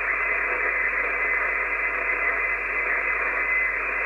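Steady hiss of HF band noise from an Icom IC-751 shortwave receiver on an open channel with no station transmitting. The hiss is narrowed to the radio's voice passband and carries a faint steady whistle.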